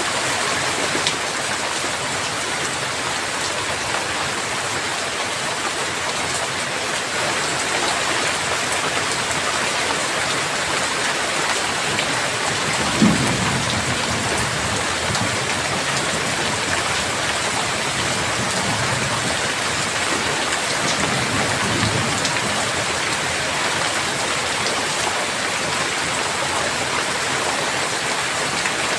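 Heavy rain falling steadily, an even hiss of drops. About halfway through a short clap of thunder cuts in, and a fainter low rumble of thunder follows a few seconds later.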